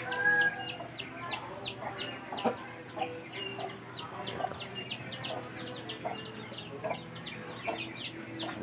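Birds chirping: a steady string of short, high, falling chirps, several a second.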